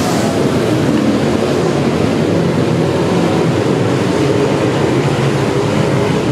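Dirt-track modified race cars' engines running at racing speed, several cars together, loud and steady throughout.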